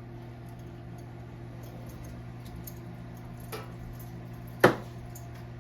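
Microwave oven running with a steady hum. A few light taps are heard over it, and one sharp click comes about three-quarters of the way through.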